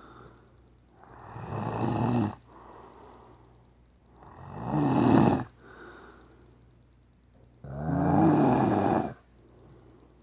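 A man snoring in his sleep: three loud snores about three seconds apart, with quieter breaths between them.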